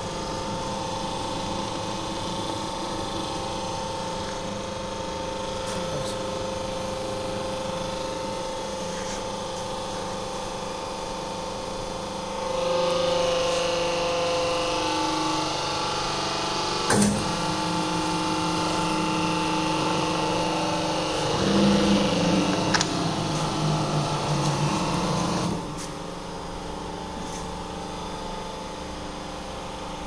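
Hydraulic hose crimping machine with its 3 HP electric motor and pump running steadily. Partway through the level rises as the machine works under load crimping a fitting onto a hose, with a sharp click and a second loud stretch whose pitch shifts downward. That stretch cuts off abruptly and the hum runs on steadily.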